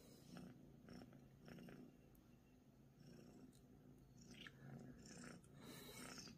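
Soft cat purring, a low rumble that swells and fades about twice a second with the cat's breathing, with a few faint rustles of the plush bed in the second half.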